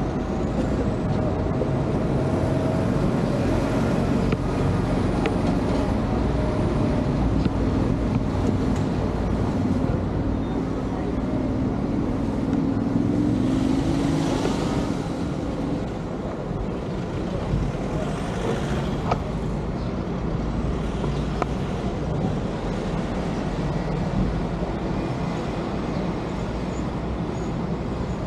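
Road traffic: motor vehicle engines running, with one engine's note slowly rising and passing-vehicle swells of noise about fourteen and eighteen seconds in.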